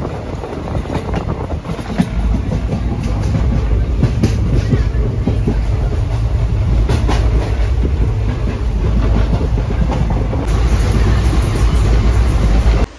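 A passenger train on the move, heard from inside a coach with open windows: a loud, steady low rumble of the wheels on the rails with irregular clicks and rattles. It cuts off abruptly just before the end.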